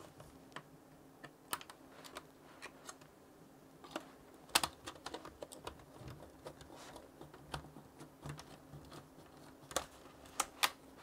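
Irregular light clicks and taps from a small screwdriver, fingers and the plastic keyboard and chassis of an HP ProBook 640 G1 laptop being handled, as the keyboard is held down and its screws are driven in from the underside. A few louder clicks come about four and a half seconds in and again near the end.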